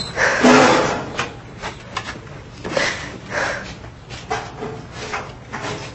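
A person sobbing: uneven gasping breaths and sniffs, the loudest sob just after the start.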